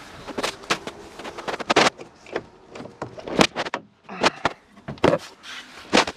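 A car door being handled and opened while someone climbs in, with about ten sharp knocks and clicks of doors and bodywork.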